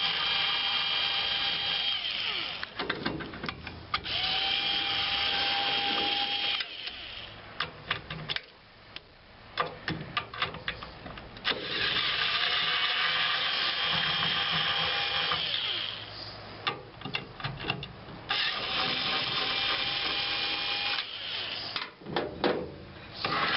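Power drill fitted with a bit extension, set to reverse and backing out screws. It whines in four runs of a few seconds each, with knocks and rattles of metal parts in the pauses between.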